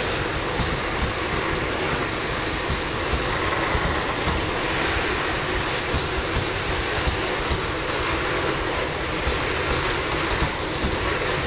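Freight train of coal gondola wagons rolling past at close range: a steady rumble of wheels on rail, with a short faint high squeak about every three seconds.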